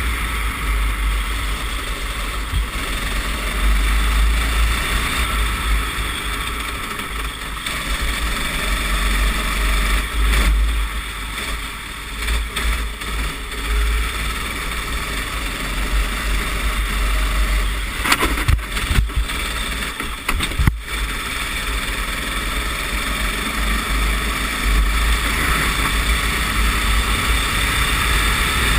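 Racing kart engine running at racing speed, heard from an onboard microphone with heavy wind buffeting. A few sharp knocks come about two-thirds of the way through.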